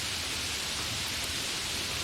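Steady, fairly heavy rain with no thunder: an even hiss of falling rain with faint scattered drop ticks.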